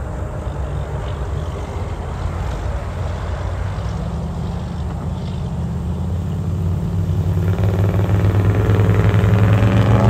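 Engine of a vintage Mercury coupe running as the car drives by, a steady low engine note that grows louder over the last few seconds as it comes closer.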